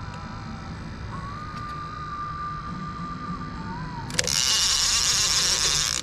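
A baitcasting reel's line-out clicker ratcheting fast and loud, starting suddenly about four seconds in, as line is pulled off the spool: the sign of a fish running with the bait. Before it, only a faint thin wavering tone over the background.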